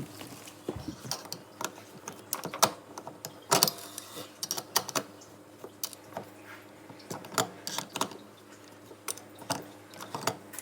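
Pliers clicking and tapping against the metal locknut of a power-cord strain-relief connector as it is tightened onto a dishwasher's junction box. The clicks come irregularly, a few a second.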